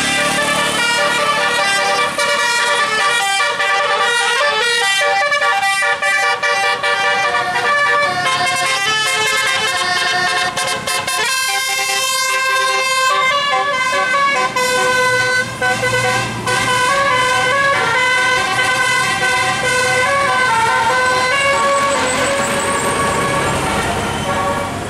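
Bus telolet horn, a bank of multi-tone air-horn trumpets, playing a quick tune of stepping notes without a break.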